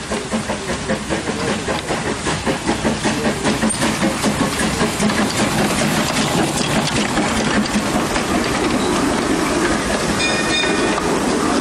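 Two-foot-gauge Henschel steam locomotive working past close by, its exhaust beating about three times a second over hissing steam and growing louder as it passes. A brief high tone sounds about ten seconds in.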